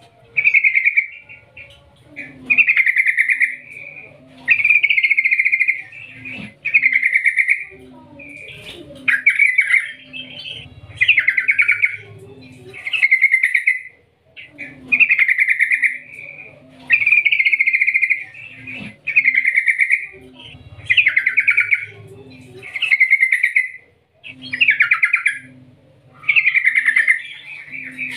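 Yellow-vented bulbul singing: loud rolling, trilled phrases about a second long, one every two seconds or so.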